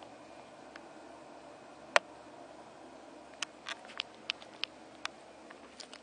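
Handling noise from a handheld camera being carried: one sharp click about two seconds in, then a quick run of light taps over a faint steady background.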